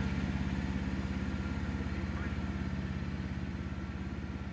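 An engine running steadily at low speed, its sound slowly growing fainter as it draws away.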